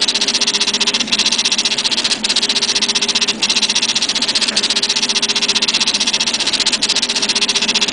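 Homemade 3D printer's stepper motors driving the print head at full speed through a zigzag infill pattern under Marlin firmware: a steady, rapid buzzing pulse with a few brief breaks where the head changes direction.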